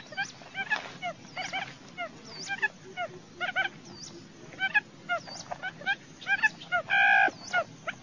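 Recorded buttonquail decoy call: many short, curving chirps in quick overlapping runs, with one brief steady honk-like note about seven seconds in.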